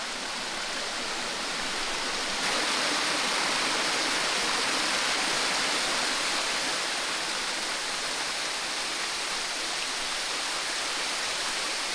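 Steady rush and splash of water from a small forest creek and waterfall spilling over rocks, getting a little louder about two and a half seconds in.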